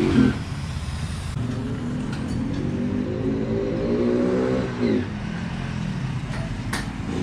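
Motorcycle engine running, revving up steadily from about a second and a half in and dropping back near five seconds, with a few sharp clicks near the end.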